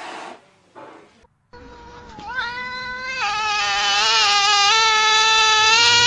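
Black-and-white tuxedo cat yowling: one long, loud drawn-out call starting about two seconds in, rising in pitch at first, then held with a slight waver.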